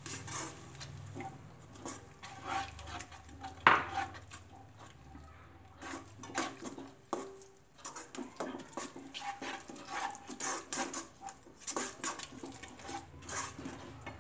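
Spatula stirring and scraping a thick, saucy cabbage mixture around a nonstick kadhai in irregular strokes, with one sharp knock about four seconds in.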